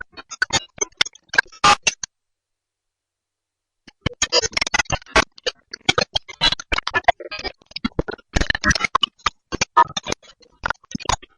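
Digital glitch sound effects: rapid stuttering clicks and short bursts of static, chopped on and off abruptly, with a silent gap of about two seconds early on before the stutter resumes.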